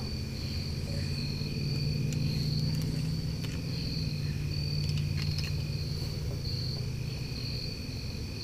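Evening insects chirring steadily in repeated pulsing trills, over a low steady rumble, with a few faint ticks.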